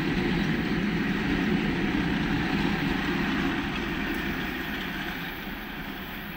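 A coupled line of VL11 and VL10K electric locomotives rolling past on the rails, a steady rumble of wheels and running gear. The last locomotive goes by and the noise fades away from about three and a half seconds in.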